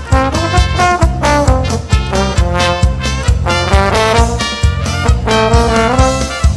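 Live dance band playing an instrumental passage: a melody carried by brass-like instruments over bass and drums, with a steady beat.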